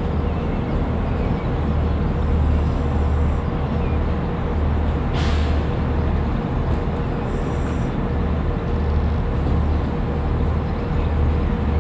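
Diesel multiple unit approaching slowly over pointwork, its underfloor engines giving a steady low throb that pulses about once a second. A short hiss comes about five seconds in, and faint high squeals are heard twice.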